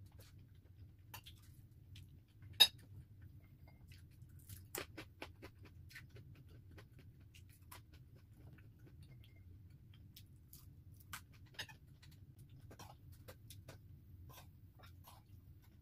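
Eating sounds: quiet chewing and scattered clicks of a metal spoon against glass and china dishes, the loudest a sharp clink about two and a half seconds in. A low steady hum lies underneath.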